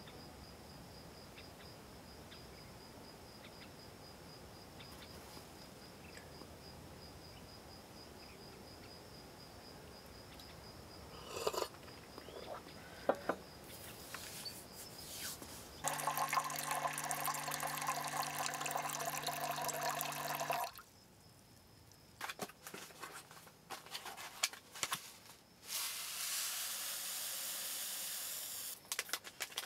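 A few light clinks, then about halfway through water is poured into an aluminium camping pot for about five seconds and stops suddenly. Near the end comes a dry hiss of couscous grains being poured into the pot.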